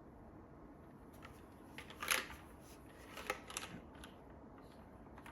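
A few scattered keystrokes on a JTD Ovinnik TKL mechanical keyboard with broken-in NovelKeys Whipped Cream linear switches under GMK keycaps on an aluminium plate: a short burst of clicks about two seconds in and another brief group about a second later, over quiet room noise.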